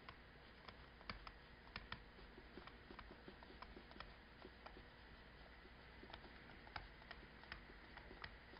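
Faint, irregular clicks and taps of a stylus writing on a tablet screen, over quiet room tone.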